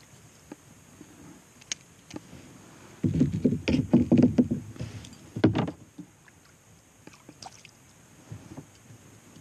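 Water sloshing and knocking against a small boat's hull: a loud stretch of about three seconds starting about three seconds in, with one sharp knock near its end, then only faint scattered ticks.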